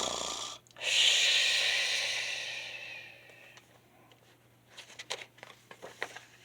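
A person making a mock snore: a short rasping in-breath, then a long breathy out-breath that fades away. Faint rustles and light taps follow near the end.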